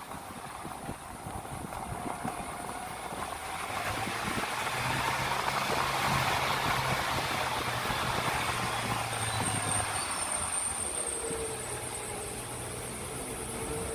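A motor vehicle's engine hum with road noise, swelling louder a few seconds in and easing off again toward the end.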